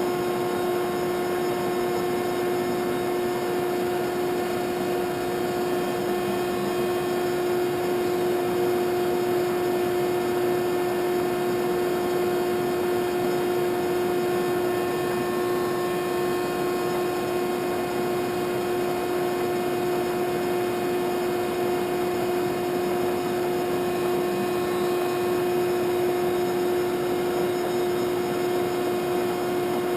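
Landis 2R universal grinder running, a steady machine hum with a constant whine that does not change.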